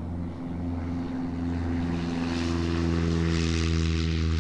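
Light aircraft's piston engine and propeller running steadily. The level climbs slightly, and a rushing hiss builds from about two seconds in.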